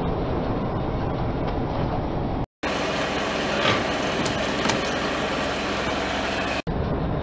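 Car engine running with a steady rumble as the tyre creeps forward, cut by a brief dropout about two and a half seconds in. Near the middle come two sharp cracks as the tyre crushes two small drink cartons, bursting them.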